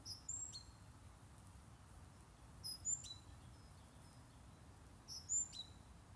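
A songbird singing a short phrase of a few quick high notes, three times about two and a half seconds apart, over a faint steady low background.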